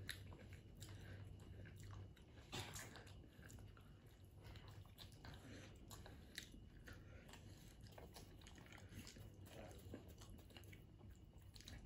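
Quiet eating sounds: chewing and mouth noises, with scattered soft clicks and crackles of a hard-boiled egg's shell being peeled by hand, over a low steady hum.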